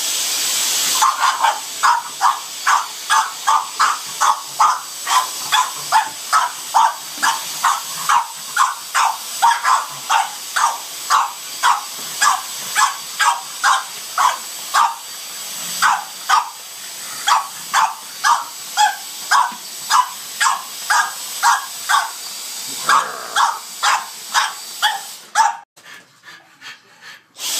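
A French bulldog barking over and over, about two sharp barks a second, at a running Dyson DC44 Animal cordless vacuum, whose motor gives a steady high whine and hiss. The vacuum cuts off near the end.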